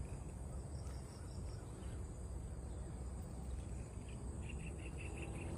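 Insects chirring steadily in the surrounding grass and trees, with a short run of quick chirps near the end and a fainter run about a second in, over a low rumble.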